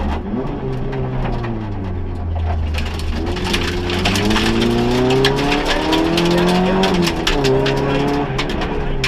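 Front-wheel-drive Vauxhall Nova rally car's engine heard from inside the cabin, revving hard under acceleration: it eases off briefly at the start, then climbs steadily in pitch for several seconds before dropping at a gearchange about seven seconds in and pulling again. Many sharp ticks and clicks run over the engine through the second half.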